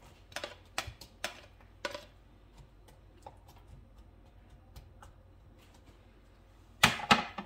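Plastic spatula tapping and scraping as chopped onions are pushed off a plate into a nonstick wok, with a few sharp ticks in the first two seconds. A faint hiss of onions starting to fry in oil follows, then a quick cluster of loud knocks of the spatula against the wok near the end.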